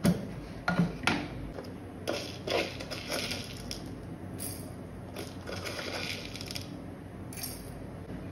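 Steel mixer-grinder jar and its lid clinking several times as the lid is taken off, then whole black peppercorns spooned into the empty steel jar, rattling against the metal in two pours.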